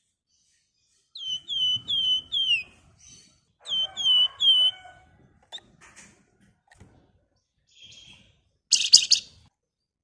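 Javan fulvetta (wergan Jawa) calling: after a second of quiet, a quick run of four down-slurred whistles, then three more about a second later. A few softer scattered notes follow, then a louder, harsher burst of calls near the end.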